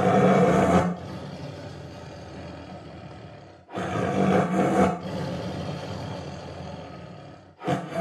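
Tiger roaring in three short bursts of about a second each, roughly four seconds apart, with a quieter steady rumble between them.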